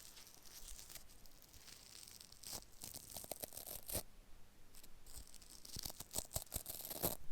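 Small mini-grinder accessories being handled: soft scratchy rustling with scattered light clicks, and a quick run of clicks near the end.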